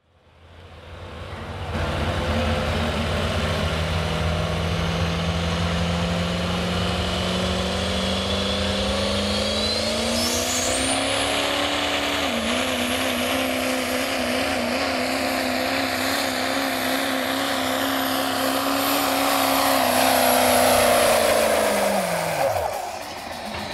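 Diesel 4x4 pickup's engine at full throttle pulling a weight-transfer sled. The revs climb, and a whistle rises steeply to a high steady whine partway through. Near the end the revs drop off sharply as the pull ends.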